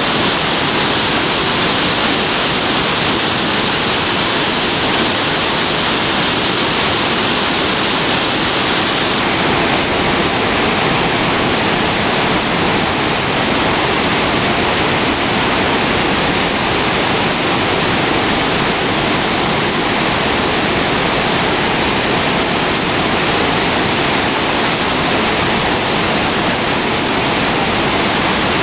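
Spokane River near flood stage pouring over a dam and falls: a loud, steady roar of rushing whitewater, its hiss dulling slightly about nine seconds in.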